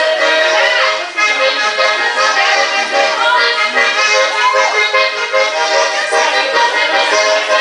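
Accordion music playing steadily, with a melodic voice line bending over the held accordion notes.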